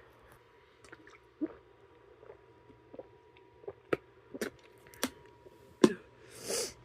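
A person chugging a drink: irregular wet gulping swallows, about a dozen short clicks, the loudest a little before the end, followed by a short breathy rush of air.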